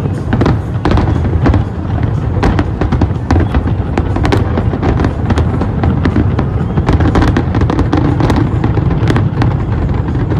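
Aerial fireworks shells bursting in rapid succession: a dense run of sharp bangs and crackles, several a second, over a continuous low rumble.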